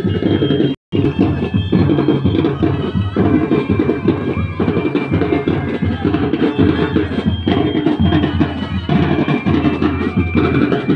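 Music with drums and percussion, dropping out for an instant about a second in.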